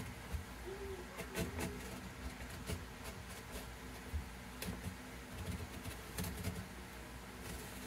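Light, scattered knocks and scrapes of a small wooden clamping block being shifted and turned on a cedar guitar top, over a steady low hum.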